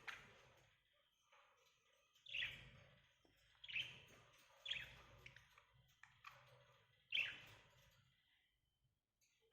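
Small pet parrots chirping: about five short, sharp calls a second or so apart, each falling in pitch, the last one the loudest.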